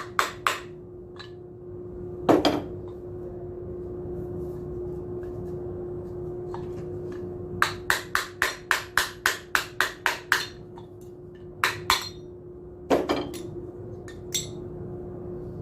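Hammer striking the metal parts of a submersible pump during repair work. The blows come singly at first, then in a quick run of about a dozen at roughly four a second, then singly again. A steady hum runs underneath.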